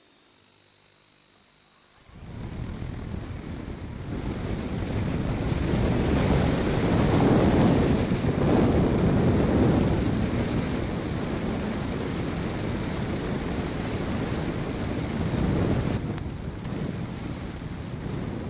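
Model airplane's motor and propeller starting abruptly about two seconds in and running at power through a takeoff and flight. It is heard from the onboard camera with heavy wind rush over the microphone and a steady high whine. The whine drops away briefly near the end.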